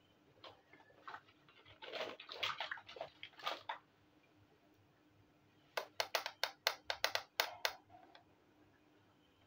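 Miniature plastic and clay toy kitchen pieces being handled and set down on a tabletop: light scrapes and knocks, then a quick run of about a dozen sharp clicks over about two seconds.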